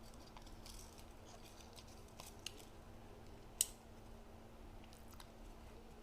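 Faint rustling and small clicks of things being handled, with one sharp click about three and a half seconds in, over a low steady hum.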